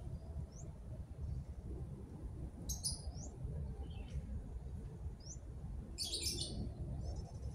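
Small birds chirping: a few single quick rising chirps, with two short bursts of high twittering about three seconds in and again about six seconds in, over a steady low rumble.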